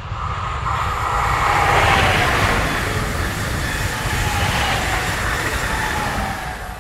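Electric multiple unit train, two units coupled, passing close at speed: a rush of wheels on rail and air that builds to its loudest about two seconds in. A whine slides slowly down in pitch as it goes by.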